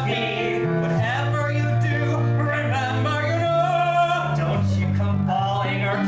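Male voice singing a musical-theatre song over keyboard and electric guitar accompaniment, with a steady low bass line underneath.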